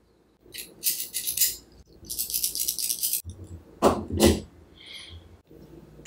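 Hand-handling noise: two spells of quick, hissy rattling, then two sharp knocks as metal camera mounting parts are set down on a wooden tabletop, followed by a brief faint high tone.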